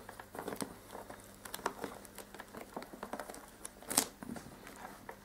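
Cellophane shrink wrap on a boxed Blu-ray set crinkling under fingers as it is picked at to open it: scattered small crackles, with a sharper one about four seconds in.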